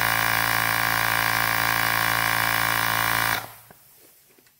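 Cordless portable air inflator's small electric compressor running steadily as it pumps up a bicycle tyre, then shutting off abruptly about three and a half seconds in as the tyre reaches its set pressure of 65.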